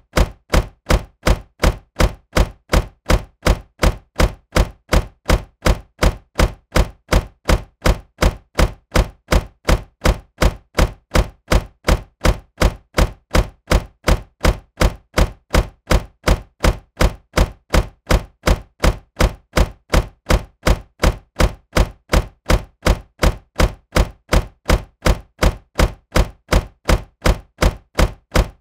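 Car door closing with a solid thunk, the same slam repeated as an even loop about two and a half times a second.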